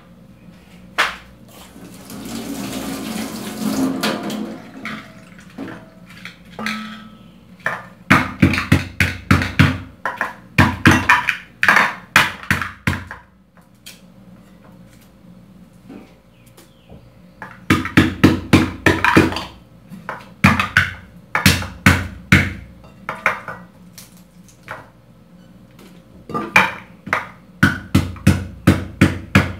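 Pestle pounding in a mortar, crushing seasoning for chicken: three runs of steady knocks at about three a second, with pauses between. About two seconds in, a tap runs briefly.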